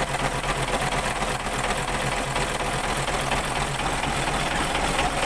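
Freshly overhauled Isuzu 10PE1 V10 diesel engine running steadily at idle just after starting. It fired without a hard start, which the mechanic takes as proof that the injection pump and gear timing are right.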